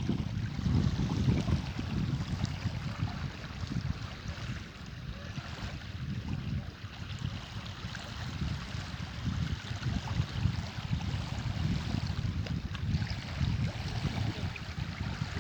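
Strong wind buffeting the microphone in uneven gusts, over a steady rushing hiss of wind and water.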